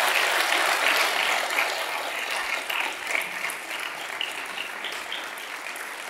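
Audience applauding, loudest at the start and slowly fading away.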